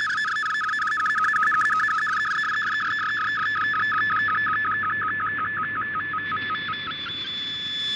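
Shortwave data-mode picture transmission received by radio: the MFSK image signal warbles quickly back and forth between a lower and a higher tone, several times a second, as the black and white bands of a logo are sent line by line. The switching slows slightly, then breaks off about seven seconds in, and a steady tone follows.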